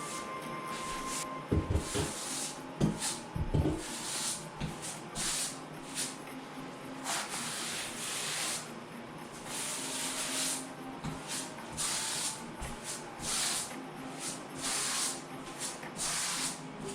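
Repeated scraping strokes of a grout float working grout across floor tile, with a few knocks about two to four seconds in.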